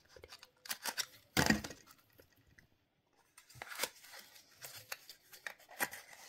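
Small cardboard box being slit open at its seal with a small cutter and its flaps and inner card pulled open: a run of short scrapes, crackles and taps, the loudest about one and a half seconds in.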